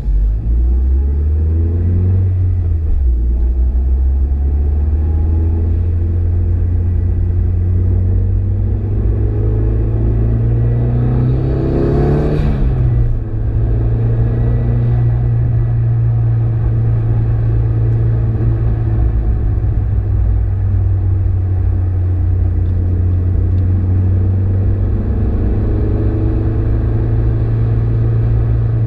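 Car engine heard from inside the cabin, pulling out onto the circuit and accelerating. The engine note climbs and drops sharply once near the middle, an upshift, then holds steady under load with road and wind noise underneath.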